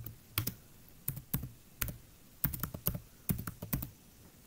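Typing on a computer keyboard: about a dozen separate keystrokes at an uneven pace, stopping a little before four seconds in.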